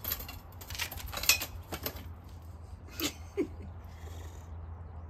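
A handful of sharp clicks and scrapes of a lug wrench being worked on the car's wheel nuts, the loudest about a second in, with a brief falling squeak about three and a half seconds in, over a steady low hum.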